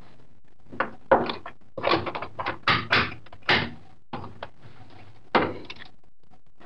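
Irregular knocks and clatter from tools and parts being handled on a workbench: about a dozen short sounds over roughly four and a half seconds, one louder knock near the end.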